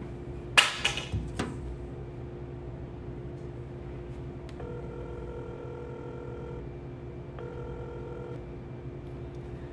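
A few sharp knocks about half a second to a second and a half in, then a phone's ringback tone heard in the handset as a call goes out, ringing twice: about two seconds, then about one second. A low steady hum runs underneath.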